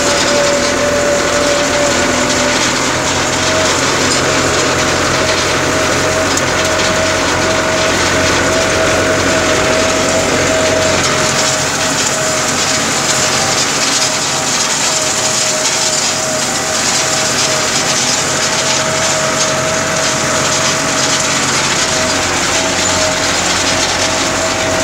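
Tractor engine running steadily under load while pulling a rotary hay rake, heard from the driver's seat, with a steady whine over the engine note.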